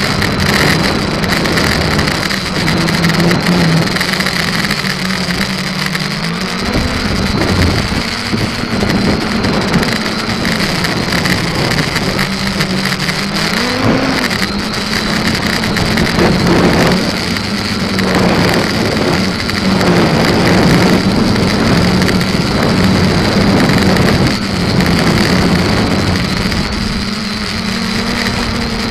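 SK450 quadcopter's four brushless motors and propellers in flight, heard through the onboard camera's microphone: a steady drone whose pitch wanders up and down with throttle, with a few sharp upward swoops as power is punched for flips and rolls.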